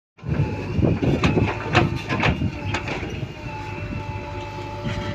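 JCB backhoe loader with its diesel engine running steadily, and a run of sharp knocks and clanks over the first three seconds or so.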